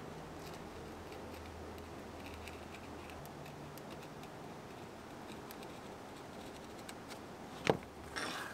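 Faint small ticks and scrapes of a knife blade working through a sheet of leather, then one sharp knock near the end as the knife is set down on the leather-covered workbench, followed by a brief scuffle of the leather being handled.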